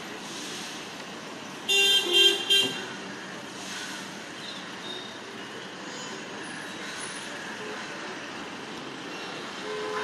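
A vehicle horn honks in about three short blasts about two seconds in, over a steady hum of distant traffic.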